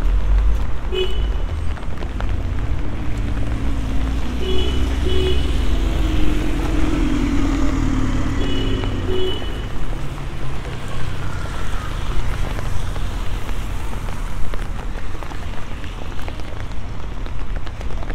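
Traffic on a rain-wet street: a steady low rumble of passing vehicles with tyre hiss off the wet road, and one engine note passing through in the middle. Short beeps, mostly in pairs, sound several times.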